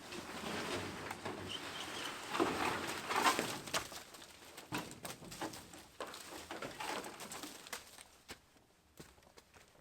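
Farm poultry calling in a low, busy chatter that dies down over the last few seconds, with a few sharp knocks.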